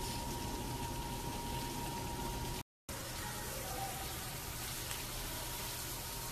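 Asparagus frying in butter in a pan: a steady sizzling hiss, broken by a brief silent gap about two and a half seconds in.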